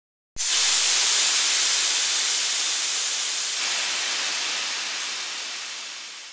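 A steady hiss that starts abruptly just under half a second in and slowly fades away.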